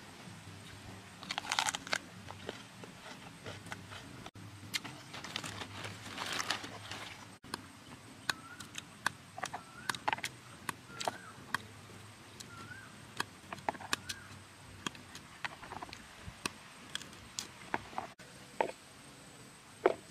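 A knife clicking and scraping as it peels and cuts a small green fruit, with crunchy cutting bursts about a second and a half in and again around six seconds. Pieces drop into a plastic box, and faint short chirps are heard in the middle.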